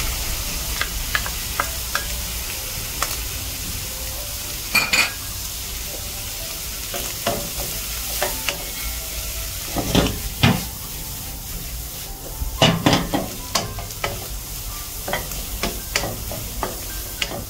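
Shrimp, bacon and beans sizzling in hot oil as they are stir-fried, with a spatula scraping and clicking against the pan and several louder clatters partway through.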